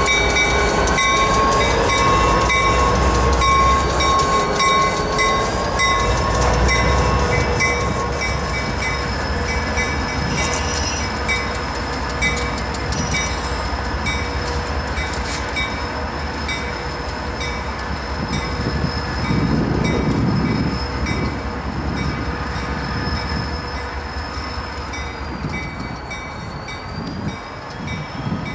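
Diesel freight locomotive led by a CSX SD40-2 rolling by, its bell ringing in steady repeated strokes over the engine's running and the rumble of the train.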